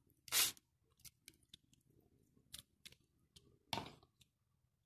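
Faint clicks and scrapes of a spoon spreading yogurt over pide dough on a paper-lined baking tray, with two louder scrapes, one just under half a second in and one about four seconds in.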